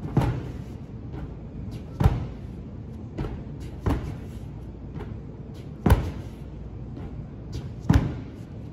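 A large inflatable ball bounced against the sand floor, with a thump about every two seconds: five strong ones and a few lighter knocks between.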